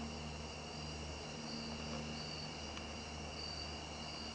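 Steady high-pitched insect trilling with short chirps recurring about once a second, over a low steady hum.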